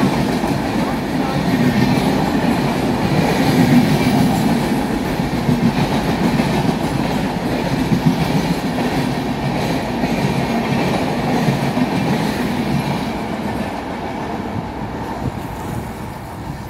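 Indian Railways express coaches running through a station at speed, with wheels clattering on the rails. The sound fades over the last few seconds as the end of the train passes.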